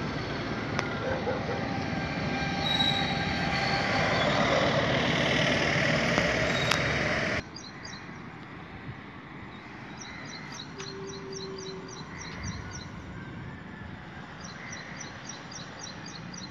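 Loud outdoor rushing noise with a low rumble, swelling in level and then cutting off abruptly about seven seconds in. After that, quieter street ambience, with a small bird's rapid high chirping in two runs.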